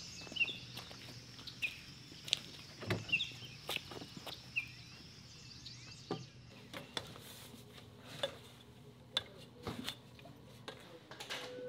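Footsteps with scattered knocks and taps, while small birds chirp a few times in the first half. Later come the knocks of feet on stepladder rungs.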